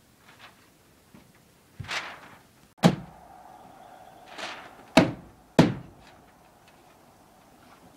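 Three loud, sharp knocks from work on a wall's wood framing, the last two about half a second apart, with two softer, drawn-out sounds in between.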